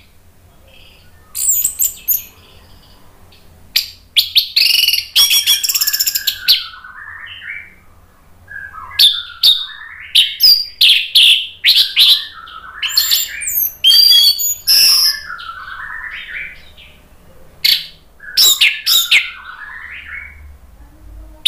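Orange-headed thrush singing a loud, varied song in phrases of sharp high notes and lower warbles, with short pauses between them.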